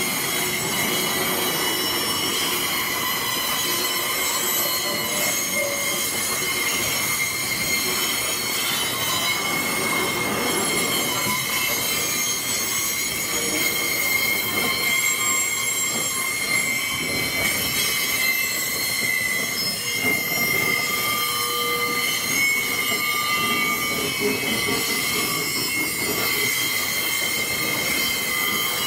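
Loaded gypsum hopper wagons of a narrow-gauge freight train rolling slowly past, steel wheels squealing with several steady high-pitched tones over a continuous rumble.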